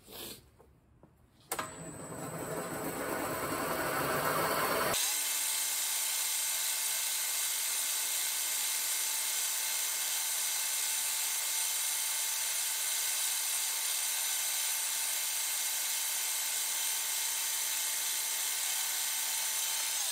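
Vertical milling machine running, its end mill cutting a slot in a G10 piece: a steady, even machining sound with a faint tone, starting about a second and a half in and building up over the next few seconds.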